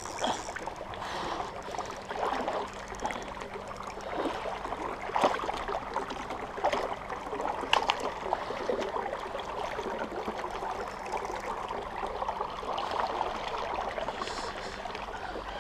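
Shallow stream running over rocks, with scattered splashes from a hooked chub thrashing at the surface as it is played in.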